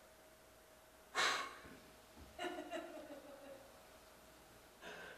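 A man's audible breath out, a sigh, about a second in, then a brief faint vocal sound; otherwise near silence.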